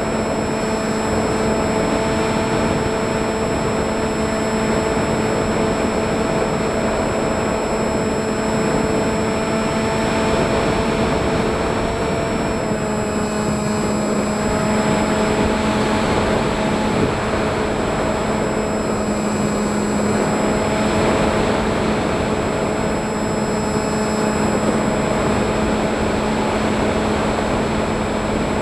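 Electric motors and propellers of an FPV model aircraft running steadily, recorded from on board. It is a continuous buzzing whine with a thin high tone above it, dipping slightly in pitch twice as the throttle eases.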